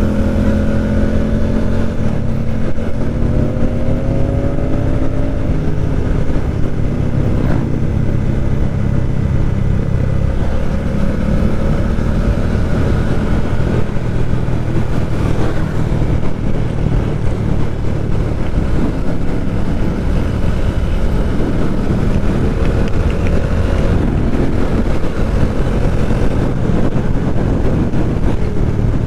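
Motorcycle engine and exhaust on a ride. The pitch rises through the first few seconds, runs steady, then climbs again near the end, over a rumble of wind and road noise.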